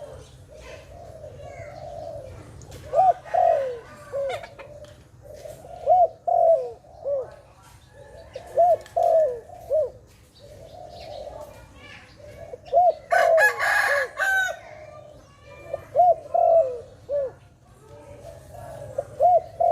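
Zebra dove (Malay dove) cooing in short staccato phrases of three or four quick notes, repeated about every three seconds. A louder, harsher call breaks in once, a little past the middle.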